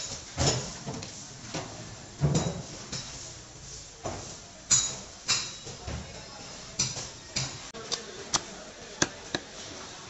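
A heavy butcher's knife chopping through raw chicken and striking a wooden chopping block: irregular sharp whacks, about a dozen, coming quicker and crisper near the end.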